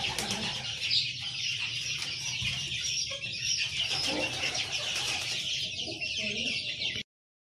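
Aseel hens clucking in a pen over a continuous high-pitched chatter; the sound cuts off abruptly near the end.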